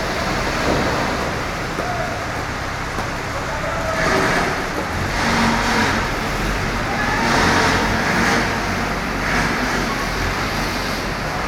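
Diesel engine of a Hydra mobile crane running, its noise swelling and easing several times.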